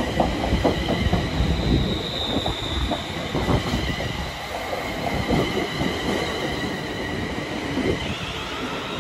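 Train running along the track with its wheels squealing: high thin squeal tones that shift in pitch over the rumble and irregular clatter of the wheels on the rails.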